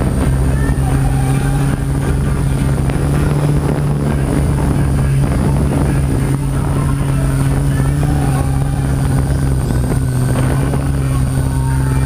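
Parrot quadcopter drone's motors and propellers running steadily in flight: a steady low hum with a high whine above it.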